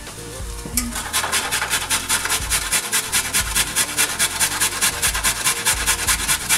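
A raw carrot grated by hand on a stainless steel box grater: rapid, even rasping strokes, about five a second, starting about a second in.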